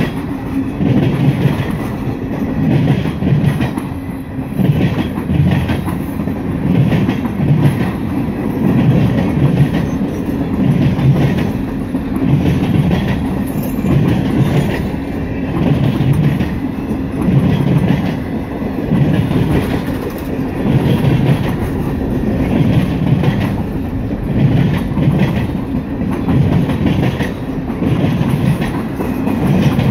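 Freight cars rolling past close by: a steady rumble of steel wheels on rail with a regular clickety-clack, about every second and a half, as the wheel sets pass over the rail joints.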